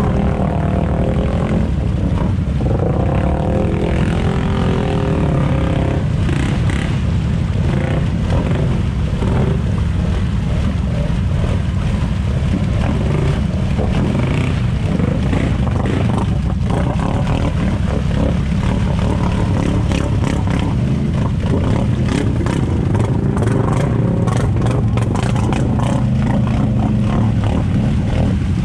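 ATV engine revving and held at high revs as the quad spins its mud tyres while bogged in deep mud, with mud and water slapping and clattering against the machine.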